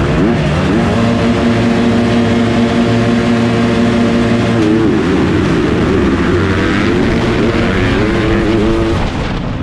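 A field of motocross bikes held at high revs on the start gate, a steady engine drone, with the rider's own Yamaha YZF250 four-stroke nearest. About four and a half seconds in the held pitch breaks and the engines rev up and down as the bikes launch and race off the start.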